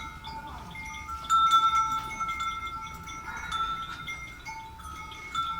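Livestock bells ringing: several clear bell tones at different fixed pitches overlapping and sounding on and off, loudest about a second in.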